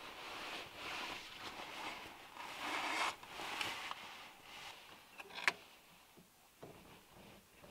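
Close-up handling sounds: a few seconds of uneven rustling, a single sharp click about five and a half seconds in, then a few light taps as a salami is handled on a wooden cutting board.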